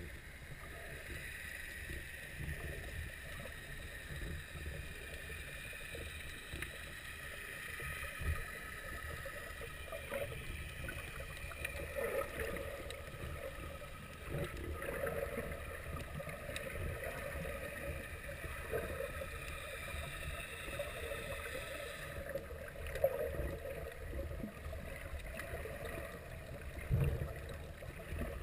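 Underwater sea ambience through a submerged camera: a steady, muffled wash of water with low rumbling and a few dull knocks, the loudest about two-thirds of the way in and again near the end.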